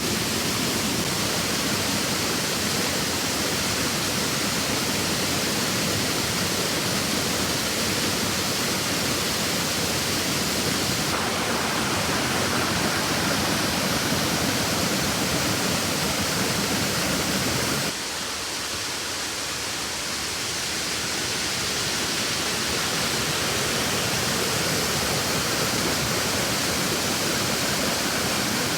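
Steady rush of river water pouring over rocks and waterfalls. The sound changes character about a third of the way in, then drops slightly in loudness a little past halfway and builds back up.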